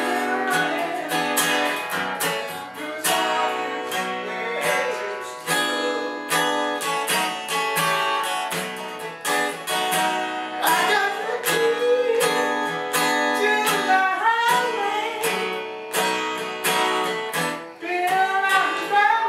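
Six-string acoustic guitar strummed steadily in a blues rhythm, with a voice singing over it in places.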